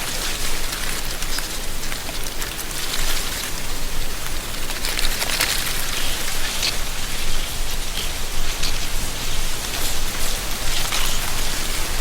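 Wind through the dry autumn leaves of a tree canopy: a steady, crackly rustling hiss that swells every few seconds.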